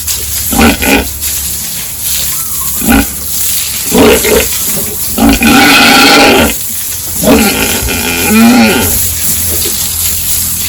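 Pigs grunting and squealing: several short calls, then two longer, loud squeals about halfway through.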